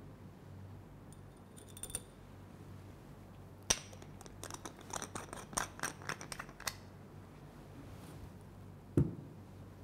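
Small clicks and scrapes of a metal spatula against a brown glass powder jar: a sharp click, then a quick run of light clinks and scrapes for about three seconds. About nine seconds in there is one dull thump as the jar is set down on the table.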